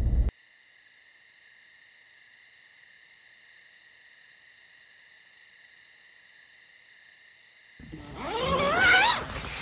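Steady high-pitched chorus of insects, crickets or similar, with a fast pulsing trill. A low rumble cuts off suddenly at the very start. Near the end a loud, wavering call rises over the chorus.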